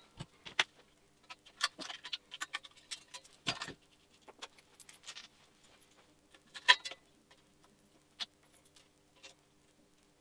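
Scattered clinks, clicks and knocks of small metal parts being handled: a homemade frame bung of threaded rod, penny washers and nuts being picked up and fitted to a bicycle frame's bottom bracket. One sharper knock comes about two-thirds through, over a faint steady hum.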